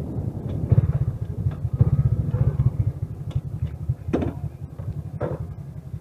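Motor scooter engine running at low speed with a rapid low putter, louder in the first half and then easing down, as if slowing to a stop.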